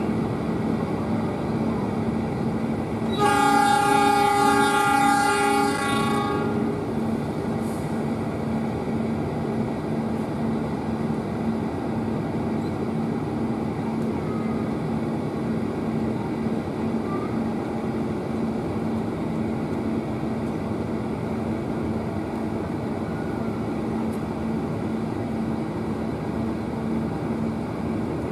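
Diesel-electric locomotive horn sounding one long blast of about three seconds, a chord of several tones, over the steady drone of the locomotive's engine as the passenger train pulls away. The horn is the driver's answer to the station master's departure signal.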